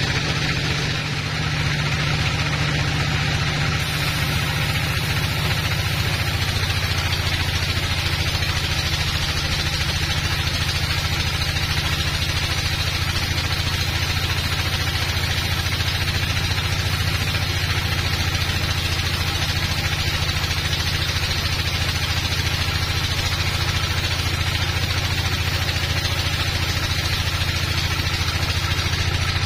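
Large log bandsaw running steadily while resawing a teak log into slabs: a constant machine drone that holds level throughout, with no change in pitch.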